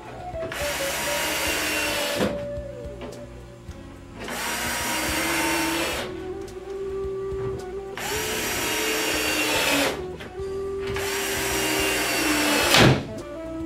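Cordless drill driving 1-inch wood screws into cabinet panels, four runs of about two seconds each, the motor's whine dropping in pitch toward the end of each run as the screw goes in. A sharp click ends the last run.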